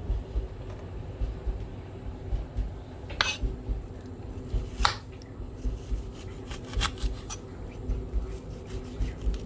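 Kitchen knife cutting onions on a chopping board: a run of dull, irregular knocks of the blade on the board, several a second, with a few sharper clicks in the middle.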